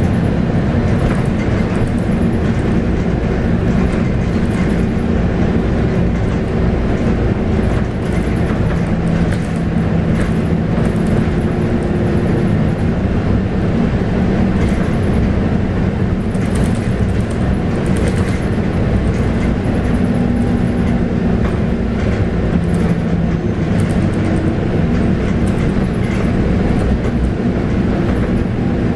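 Scania K280UB bus under way, heard from inside: its 9.3-litre five-cylinder DC9 diesel drones steadily over a heavy road rumble, the engine note shifting a few times, with light rattles from the body.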